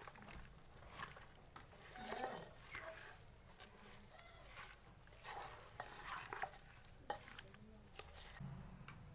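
A spoon mixing raw mutton with sliced onions, tomatoes and spices in a steel pressure-cooker pot. It makes faint, irregular wet squelching and scraping, with scattered clicks of the spoon against the pot.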